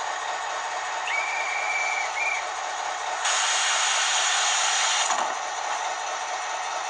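ESU LokSound 5 model-locomotive sound decoder playing through its small speaker: a conductor's whistle, one long blast and a short one, then about two seconds of air hiss as a single door closes.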